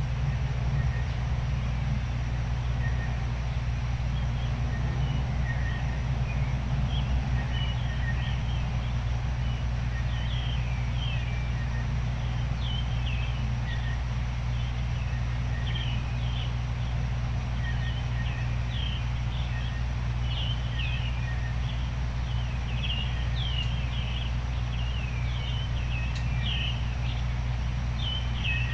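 A steady rumbling noise bed, the constant 'white noise' of a relaxation track, runs under many small songbirds chirping at dawn. The birds give short, quick, falling chirps, sparse at first and busier after about ten seconds.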